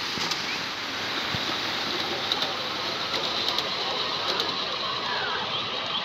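Model train running along outdoor track, its small motor and wheels passing close by, over a steady background hiss.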